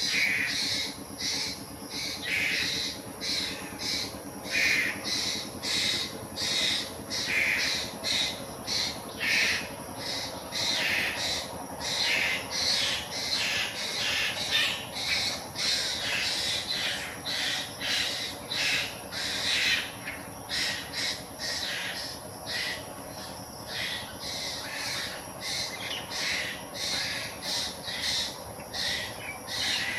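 Asian koel calling in a long series of short calls, about two a second.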